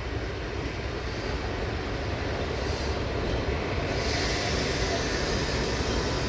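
Diesel-hydraulic shunting locomotive (LDH, no. 82-0562-7) running its engine as it creeps up alongside a parked locomotive, getting steadily louder as it nears. A higher hiss joins about four seconds in.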